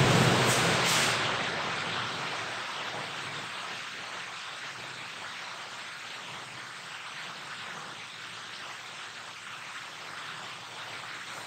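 Even hiss like static or a fan, loudest at the start and settling lower over the first few seconds, then steady.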